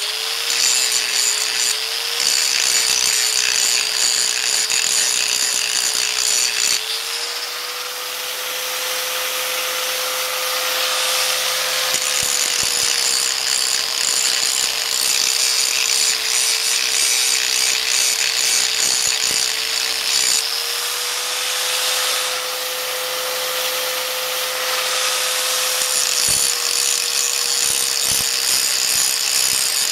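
Hand-held grinder with a thin abrasive wheel running steadily and grinding metal off a full roller rocker arm, grinding clearance so the rocker no longer hits its stud. A steady motor whine sits over a harsh grinding hiss, and the whine rises a little twice, about seven and twenty seconds in, before dropping back as the wheel bears on the part again.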